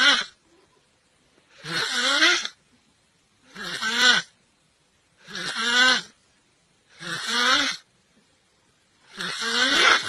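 A person snoring loudly in a regular rhythm: about five snores, each under a second long with a wavering pitch, roughly every two seconds.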